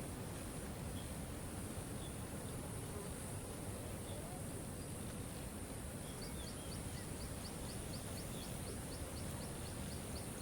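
Waterfall rushing steadily, with a few faint bird chirps. About six seconds in, a rapid run of short high ticks begins, about five a second.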